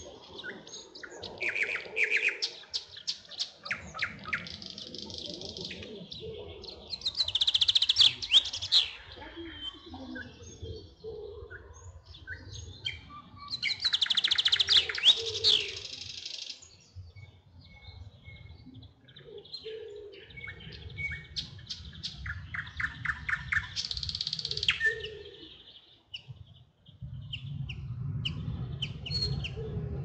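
Several songbirds singing, with phrases of rapid trills and whistles overlapping one another; the loudest bursts come about eight and fifteen seconds in. A low rumble comes and goes underneath.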